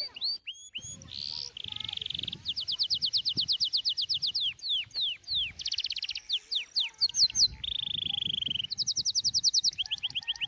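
A songbird singing a varied, loud song of fast trills of repeated notes, quick descending whistles and held buzzy phrases, one after another with short gaps.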